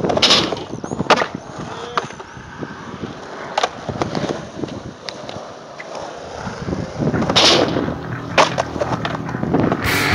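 Skateboard wheels rolling on concrete, with several sharp clacks of the board against the ground and ramp, the loudest about seven seconds in.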